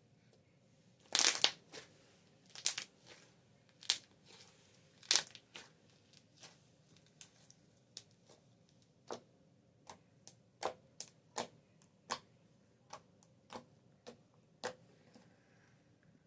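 Slime being pressed and worked by hand, air pockets popping with sharp clicks and crackles. A loud cluster of pops comes about a second in, then single pops follow about one or two a second.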